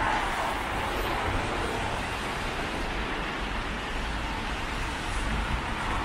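Road traffic on a wet, slushy street: tyres hissing over the wet asphalt as cars pass, swelling as one goes by at the start and again as another approaches near the end.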